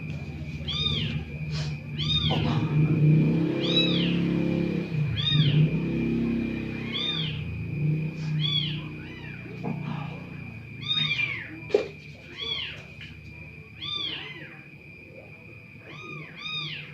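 A small animal's high-pitched calls, each rising and falling, repeated about once a second and coming faster in short runs, over a faint steady high whine. A low hum is loudest in the first half.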